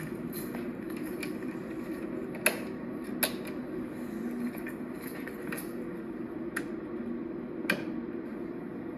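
A steady low mechanical hum with a few sharp clicks and taps scattered through it.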